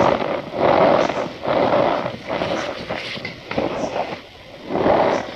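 Compacted cornstarch cups and balls being crushed by hand, giving a squeaky, grainy crunch that comes in repeated swells about once a second, easing off about four seconds in and picking up again near the end.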